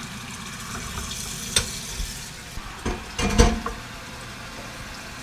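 Kitchen clatter: a steady hiss, a sharp click about a second and a half in, then a few clicks and knocks around three seconds ending in a dull thump, the loudest sound.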